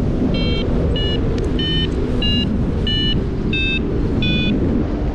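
A paragliding variometer beeping its climb tone: seven short beeps about two-thirds of a second apart, stopping near the end. Under them is a heavy rush of wind on the microphone.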